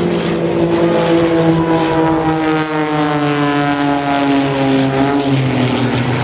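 Propeller-driven aerobatic stunt planes flying past, their engines droning, with the pitch dropping steadily through the second half as they pass by.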